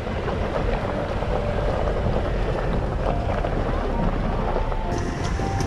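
A vehicle on the move, a steady rumble with wind buffeting the microphone.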